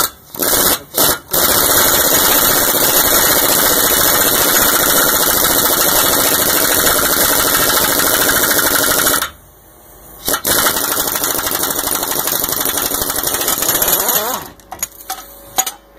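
Pneumatic impact wrench with a large deep socket hammering on the screw of a torsion bar unloading tool, working the torsion bar load off so the adjuster key comes loose. A few short blips come first, then a long run of about eight seconds, a break of about a second, a second run of about four seconds, and a few short blips near the end.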